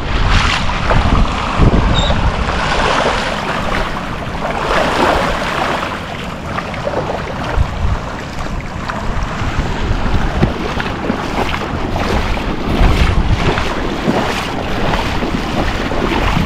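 Wind buffeting the microphone, a loud uneven rumble, over the steady wash of ocean surf.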